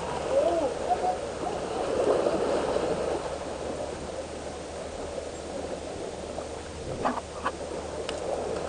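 Sea water washing and splashing among the boulders of a rocky breakwater, a steady rush. A few short warbling tones come in the first second, and a couple of light knocks about seven seconds in.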